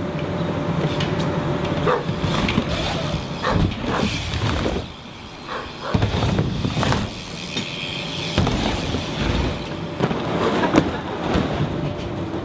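BMX bike riding on a backyard ramp: tyres rolling on the ramp surface, with scattered knocks and clatter from the bike.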